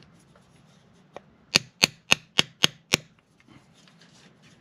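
Six sharp metal taps, about three a second, from a long steel tool striking the valvetrain of an H22 cylinder head, after one faint click.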